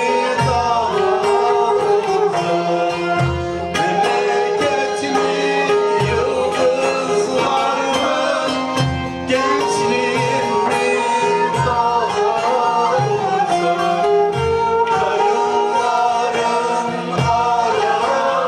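Turkish folk music ensemble performing: a voice sings over plucked string instruments, with a steady low beat.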